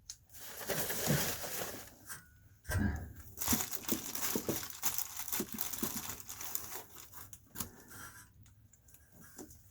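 Tape being torn off the roll and Reflectix foil-faced bubble insulation crinkling as it is handled and pressed into place, in two main stretches of rustling and ripping with many small clicks, quieter for the last two seconds.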